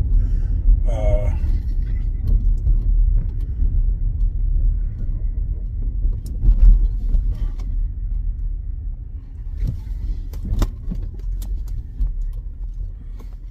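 Low, steady rumble of a car in motion, heard from inside the cabin, with a few sharp clicks or knocks about ten seconds in.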